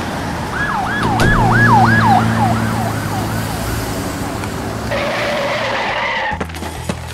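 Ambulance siren wailing in quick up-and-down sweeps, about three a second, fading away after a few seconds. A harsher, noisier sound follows briefly about five seconds in.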